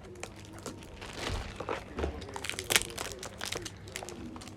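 Plastic film wrapping on a perfume box crinkling and crackling in the hands as it is unwrapped, in quick, irregular crackles.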